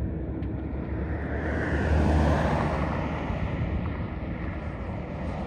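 Low rumble of road traffic with wind on the microphone, swelling about two seconds in as a vehicle passes close by.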